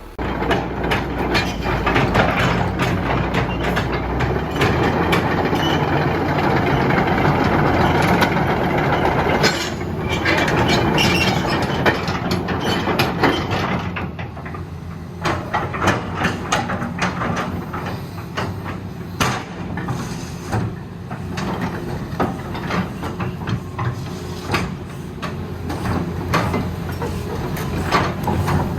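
Hitachi EX210K-5 excavator's Isuzu 6BG1 six-cylinder diesel running hard as the machine is worked, with the engine note rising sharply right at the start and many sharp clanks and knocks through the running noise, more spaced out in the second half.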